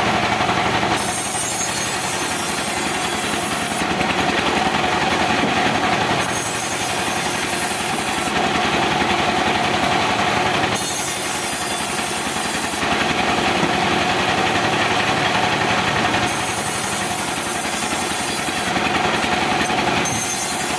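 Chainsaw running steadily and cutting into teak wood.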